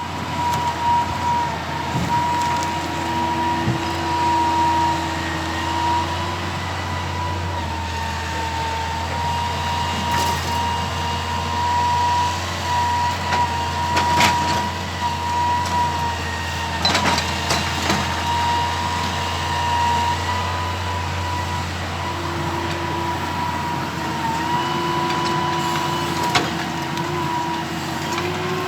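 Excavator running steadily, its engine humming under a high, even hydraulic whine, with a few sharp knocks.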